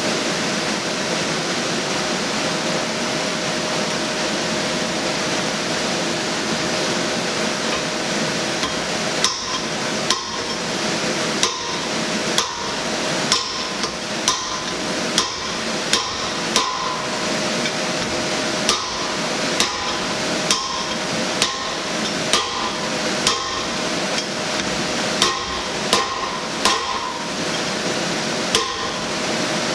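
A hand hammer striking the top die of a blacksmith's guillotine tool about once a second, cutting through a hot 1-inch bright mild steel bar. The blows begin about nine seconds in, over a steady background hiss.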